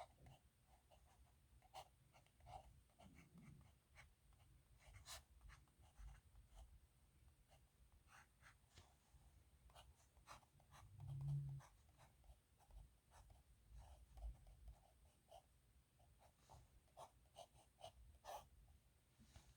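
Faint scratching of a nib pen on paper, a run of short, irregular strokes and ticks as characters are written. About eleven seconds in there is a brief low sound, the loudest moment.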